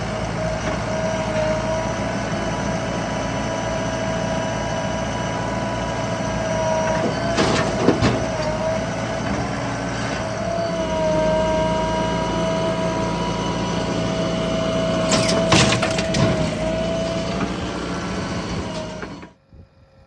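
JCB 3DX backhoe loader's diesel engine running under load with a steady high whine. Two bursts of sharp knocks come about a third and three quarters of the way in, typical of the bucket working and mud dropping into a tractor trolley. The sound cuts off abruptly near the end.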